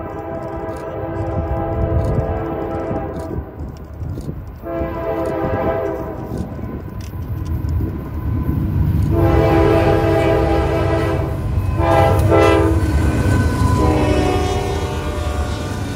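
Norfolk Southern diesel freight locomotive horn sounding a sequence of long blasts, with one short blast about three-quarters of the way through, as the train approaches. Under the horn, the low rumble of the diesel locomotives and wheels on the rails grows louder as the units pass close by near the end.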